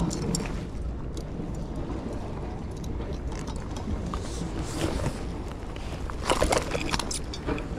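Steady low outdoor rumble of wind and sea at the breakwater, with light clicks and rustles from handling a landing net and a hooked black sea bream, and a louder burst of rustling about six and a half seconds in.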